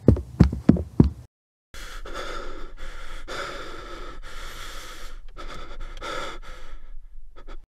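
A person breathing heavily: four sharp gasps in the first second, then, after a brief gap, a long ragged stretch of heavy breaths that cuts off near the end.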